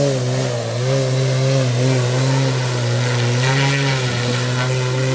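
Electric-powered Extra 330 aerobatic model aircraft hanging nose-up in a hover, its electric motor and variable-pitch propeller giving a steady drone whose pitch rises and falls gently.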